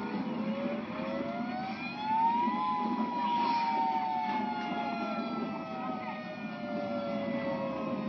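Outdoor tornado warning siren winding up in pitch over about two and a half seconds, then slowly winding back down, played back through computer speakers.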